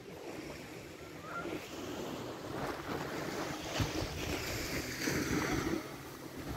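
Surf washing on the beach, with wind gusting on the microphone; the wash grows louder about halfway through.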